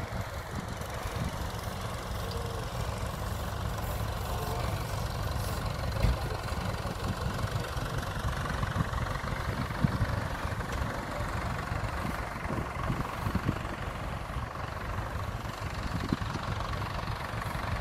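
Tractor engines idling, a steady low rumble, with a few short thumps about six and ten seconds in.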